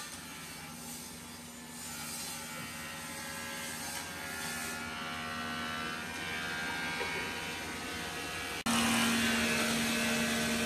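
Electric chop saw motor whirring at a moderate level while a wooden block is set against it. About nine seconds in, the sound jumps suddenly to the louder, steady whine of a miter saw motor running at full speed, not yet cutting.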